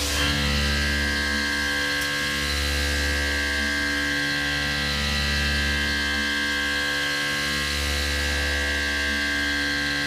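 Tormach PCNC 1100 CNC mill cutting an aluminium disc with an end mill: a steady high spindle whine over a low hum that swells and eases every few seconds.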